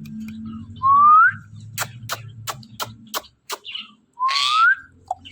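Pet parrot giving two rising whistles a few seconds apart, each sliding up in pitch with a raspy edge. Between them comes a quick run of about eight sharp clicks.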